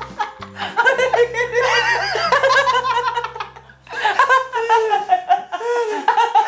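A group of young men laughing hard together, with loud belly laughs. The laughter breaks off briefly just before four seconds in, then starts up again.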